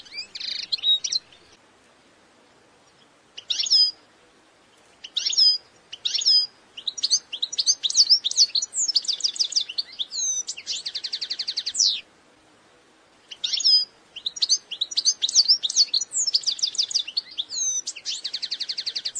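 European goldfinch singing: phrases of quick, high twittering notes and trills broken by short pauses, with a fast buzzy trill about eleven seconds in and again near the end.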